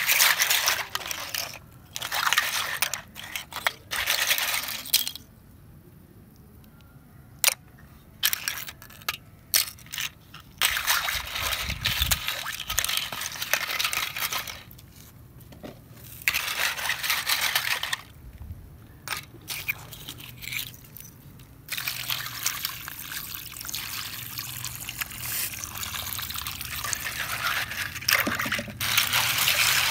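Seashell halves clinking and scraping against each other and a steel basin as a hand stirs through them under water, with water sloshing and dripping. It comes in bursts with short quiet pauses between them.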